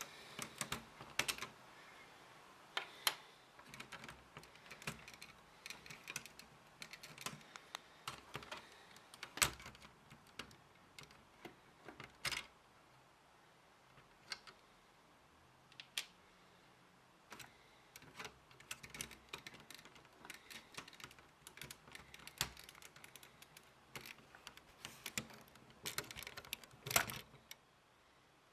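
Irregular plastic clicking and clacking of Lego parts, with a few louder snaps among the lighter clicks.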